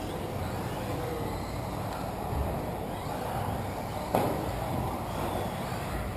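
Electric 1/10-scale RC off-road buggies racing on the track: a steady hiss of motors and tyres on dirt, with one sharp knock about four seconds in.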